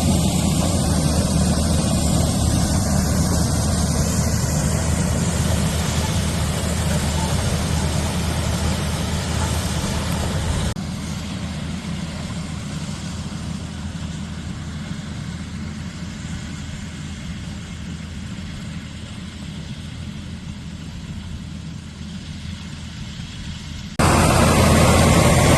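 John Deere 4020 tractor running steadily, pulling and powering a pull-type corn sheller. The sound drops suddenly to a quieter level about eleven seconds in and jumps back up just before the end.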